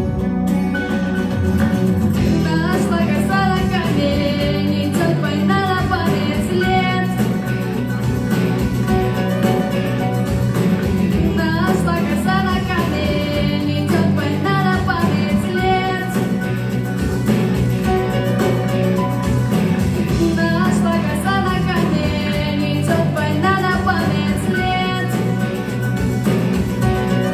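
Music from a pop song: steady accompaniment with a melodic phrase that returns about every nine seconds.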